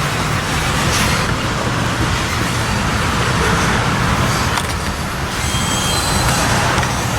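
Norfolk Southern train rolling by close: a steady rumble and wheel-on-rail noise, with thin high wheel squeal creeping in near the end.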